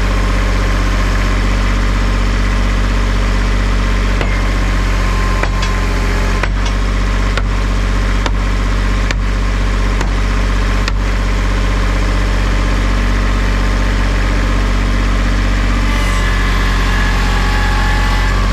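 Kubota L3800 tractor's three-cylinder diesel engine running steadily at idle. About four seconds in, a run of eight or so sharp knocks comes at roughly one a second, then stops.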